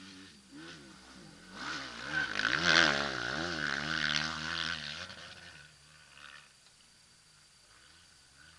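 Motocross bike engine revving up and down, rising to its loudest about three seconds in and fading away by five seconds.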